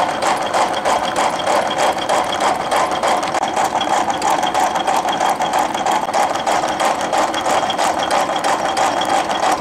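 A Rhodes 7-inch metal shaper running, its ram stroking back and forth as a round-nose tool cuts across a cast aluminum block. The sound is a loud, steady, fast mechanical clatter with a faint high whine.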